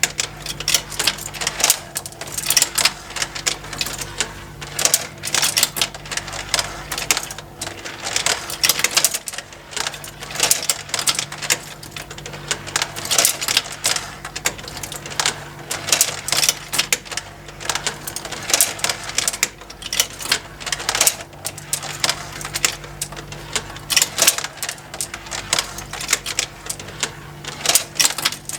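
Plastic toy marble run: many marbles clicking and clattering on plastic tracks and lift steps, over the steady hum of the small motor driving the conveyor lifts.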